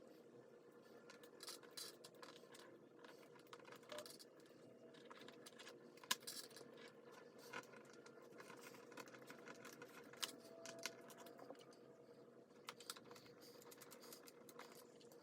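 Faint, irregular small clicks and taps, one sharper than the rest about six seconds in, over a faint steady hum.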